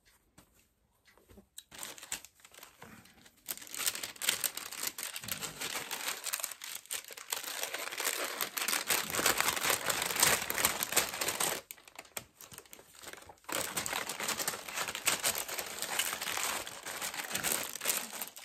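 Crinkly wrapping being handled and rummaged through, rustling and crackling in long irregular bursts, with a short pause about two-thirds of the way through.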